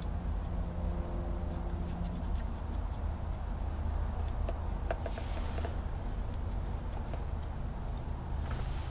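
Faint metallic clicks of coned nuts being turned by hand onto the axle retainer bolts of a 7.25 Mopar rear end, over a steady low hum. Two short hissing rushes come about five seconds in and near the end.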